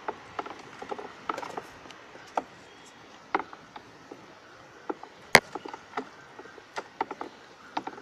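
A stick stirring crumbly cow dung in a plastic bucket: irregular scraping clicks and knocks, the sharpest a little past halfway.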